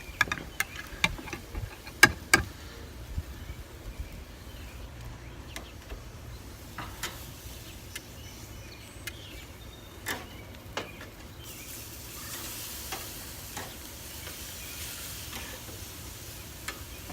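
Steaks sizzling on a charcoal grill over hot briquettes, with sharp clicks and knocks in the first couple of seconds and a few more later. The sizzling hiss grows louder about two-thirds of the way through.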